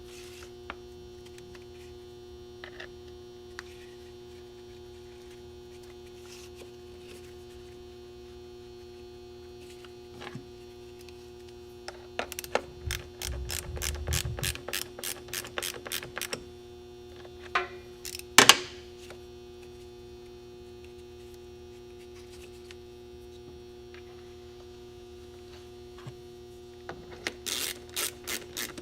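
A steady electrical hum, with two runs of rapid, evenly spaced ratcheting clicks from hand-tool work on the wiring, one about halfway through and one near the end, and a single sharp click in between.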